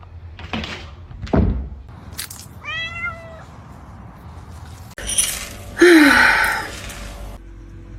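A cat meowing twice: a short meow about three seconds in, and a louder meow falling in pitch about six seconds in. Before them come a couple of short noises.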